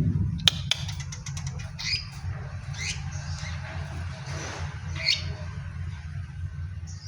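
Caged long-tailed shrike (cendet) giving three short, harsh squawking calls, preceded by a quick run of clicks about half a second in. A steady low hum runs underneath.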